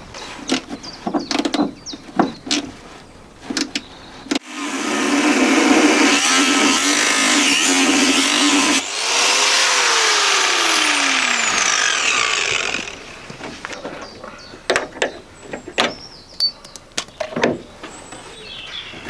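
Handheld power tool working on the rusted door-hinge nuts of a Land Rover Series 3, running loudly and steadily for about eight seconds with a brief dip in the middle, its pitch falling over its last few seconds. Metal knocks and clinks from hand work on the hinge come before and after it.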